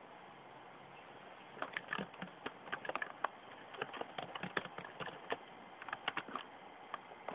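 Computer keyboard being typed on: a quick, irregular run of key clicks starting about a second and a half in, over a faint steady hiss.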